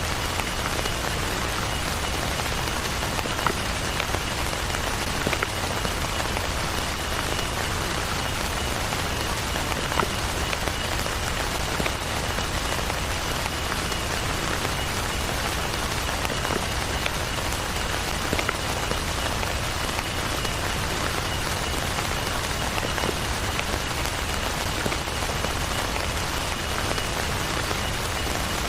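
Heavy rain falling steadily, with now and then a single louder drop striking close by.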